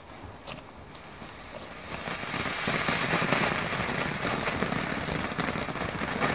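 Garden fountain firework: a faint fizz at first, then about two seconds in it builds to a steady hissing spray of sparks with dense crackling.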